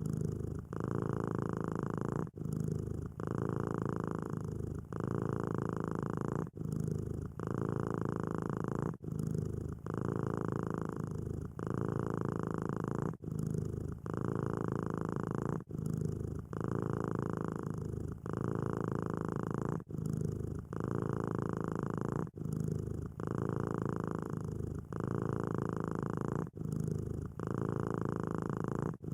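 Domestic cat purring steadily, the purr changing with each breath in and out. There is a brief break about every two seconds.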